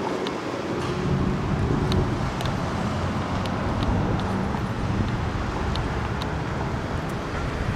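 Chevrolet Tahoe's V8 engine running at low speed as the SUV creeps out of the station bay, a steady low hum, with a few faint high ticks scattered through it.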